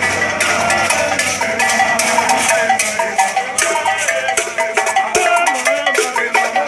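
Jogging group singing and chanting jama songs in chorus as they run, with rapid repeated percussion strikes keeping the beat.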